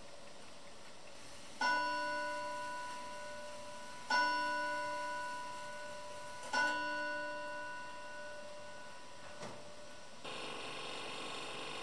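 A clock chime strikes three times, about two and a half seconds apart, each stroke ringing out and slowly fading. A small knock follows, then a steady background hiss near the end.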